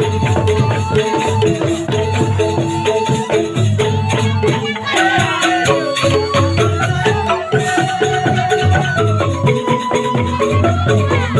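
Upbeat music with a steady beat and shaker-like percussion under a melody line.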